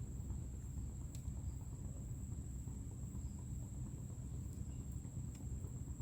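A continuous high-pitched insect trill, steady and unbroken, over a low rumble, with a couple of faint clicks.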